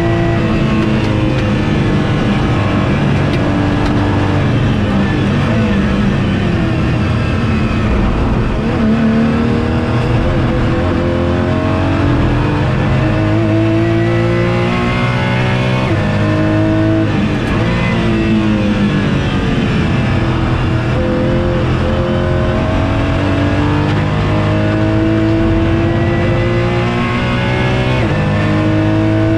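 Porsche GT4 race car's flat-six engine heard from inside the cabin at full racing pace. It climbs steadily in pitch through each gear, then drops sharply on upshifts and braking, several times over, with road and wind noise underneath.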